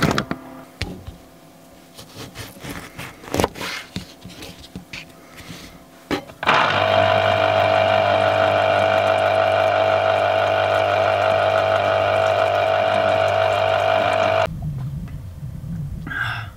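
Electric citrus juicer's motor running steadily for about eight seconds while an orange half is pressed onto its spinning cone; it starts about six seconds in and cuts off sharply near the end. Before it, scattered clicks and knocks of the juicer and its plug being handled.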